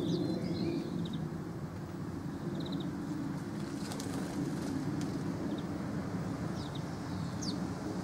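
House sparrow chirping in short notes at a nest box, with a brief flutter of wings about four seconds in as it flies off; a few more falling chirps come near the end. A steady low rumble runs underneath.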